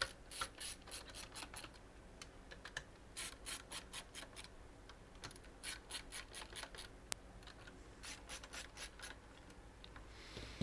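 Computer cables being handled and pulled through plastic cable combs: several short bursts of rubbing and clicking, with pauses between them.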